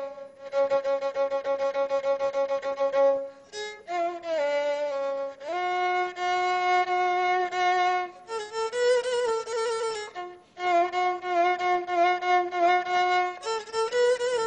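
Egyptian rababa (two-string spike fiddle) bowed in a slow solo melody of long held notes with a slight vibrato. It plays in phrases broken by brief pauses every two or three seconds.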